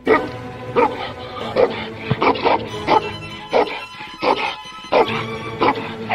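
Tibetan mastiff barking over and over, about three barks every two seconds, with background music running under it.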